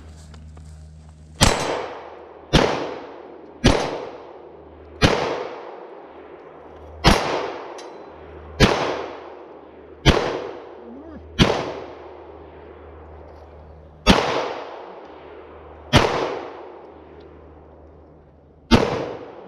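Eleven single gunshots fired one at a time, spaced about one to three seconds apart, each followed by a long echoing tail.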